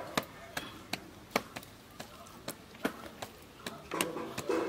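Fingers mixing and scooping rice and chicken curry on a leaf plate: irregular sharp clicks and taps, about two a second.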